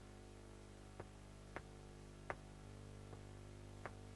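Near silence: room tone with a steady low electrical hum and a few faint scattered clicks.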